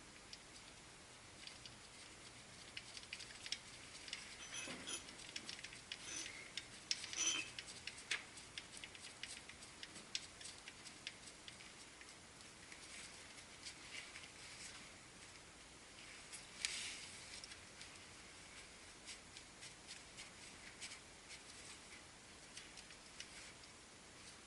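Faint, irregular small clicks, taps and scrapes of hand work with small parts and tools, busiest a few seconds in and again briefly later on.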